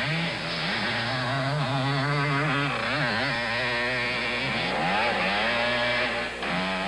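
Motocross dirt bike engine revving hard as it is ridden, its pitch climbing and dropping again and again.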